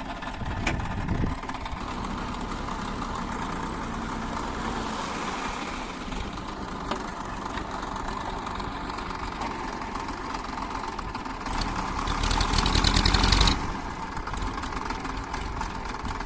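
Diesel engine of a heavy machine running steadily. About twelve seconds in it gets louder and harsher for roughly two seconds, then settles back.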